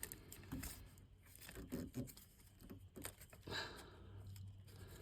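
Faint, scattered clicks, taps and rustles of hands handling parts and tools, with a faint low hum for about a second past the middle.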